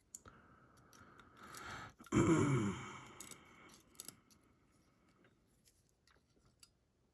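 Small metal lock parts clicking and scraping as a disassembled DORMA DC500 cylinder's pins are handled, with a short vocal sound from the person about two seconds in.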